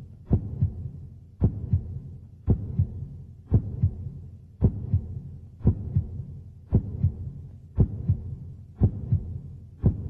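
Heartbeat sound effect: a steady double thump repeating about once a second, ten beats in all.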